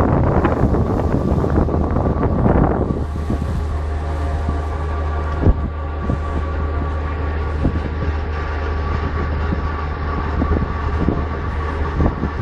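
A car ferry's diesel engines running with a steady low drone. A rushing noise of wind on the microphone is strong for the first three seconds, then drops away and leaves the drone.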